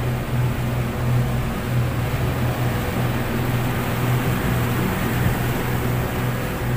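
Twin outboard motors running steadily at cruising speed, a constant low drone, over the rush of the boat's wake.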